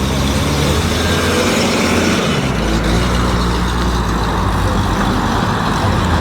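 A motor vehicle engine running close by, a steady low rumble whose pitch shifts about two and a half seconds in.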